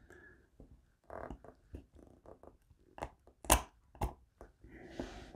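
Faint handling clicks and scrapes of a steel pin punch being eased out of a Beretta Cheetah pistol frame, with a few sharper clicks, the loudest about three and a half seconds in.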